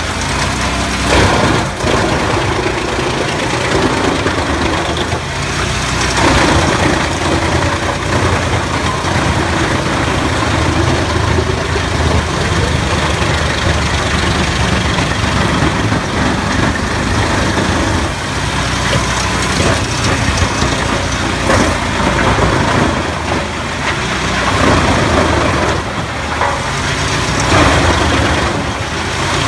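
Shinyoung model 800 tractor-mounted wood chipper running, driven by the tractor's engine. It makes a steady, loud mechanical noise that swells now and then.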